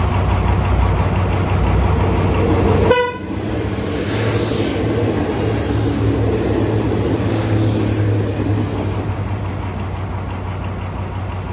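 Diesel train engines running with a steady low hum, a short horn toot about three seconds in, then the hum swelling as a Daewoo diesel railcar set rolls past.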